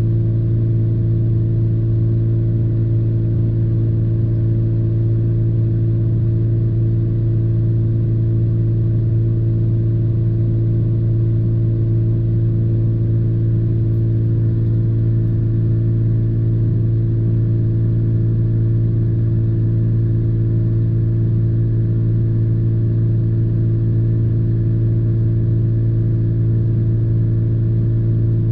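Steady low hum with a few fixed tones inside the cab of the parked pickup truck: its engine idling, unchanging throughout.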